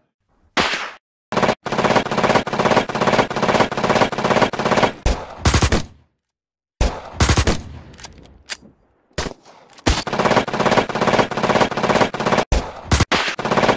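Dubbed automatic-gunfire sound effects: long bursts of rapid machine-gun fire, about four shots a second, with a brief break near the middle and a few short pauses later.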